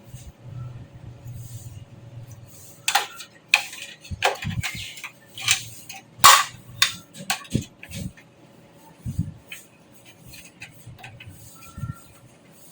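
Sharp clicks and knocks of computer parts being handled and fitted in a metal desktop case, coming thick and fast a few seconds in and then thinning out, over a faint steady hum.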